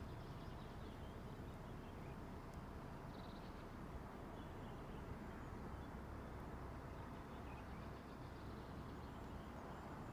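Faint outdoor ambience: a low steady rumble of wind on the microphone, with scattered faint high chirps of small birds in the distance.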